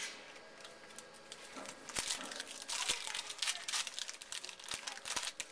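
Wrapper of a baseball card pack being torn open and crinkled by hand: a dense run of crackles, heaviest from about two seconds in.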